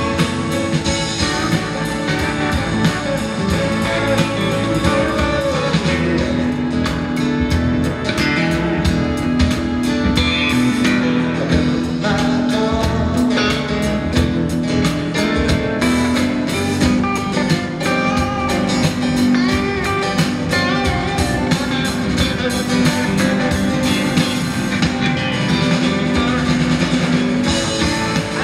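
Live concert music led by a strummed acoustic guitar, played in a steady rhythm with a second guitar, with a held low note sounding through most of the middle.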